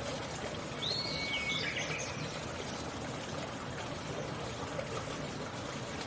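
Steady flowing water with wild birds calling: a short cluster of whistled notes about a second in, then only faint calls.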